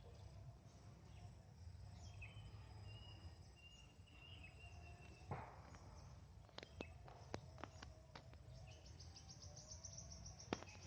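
Faint woodland ambience under a low rumble: a thin, wavering high bird-like call for a few seconds, then a few sharp clicks, then a fast pulsing insect trill near the end.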